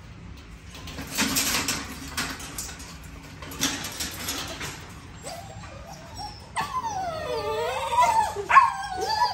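XL American bully puppies in a wire crate, with a few seconds of scratchy scuffling noise, then high, wavering whining and whimpering cries from about halfway through.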